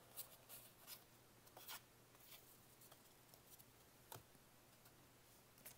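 Faint scattered ticks and rustles of cardboard trading cards being shuffled through the hands, card edges sliding over one another.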